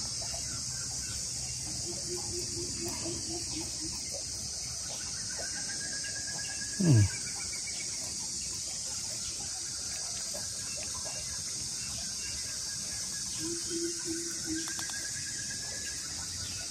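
Steady, high-pitched chorus of insects such as crickets or cicadas. About seven seconds in comes one short, loud call that falls sharply in pitch.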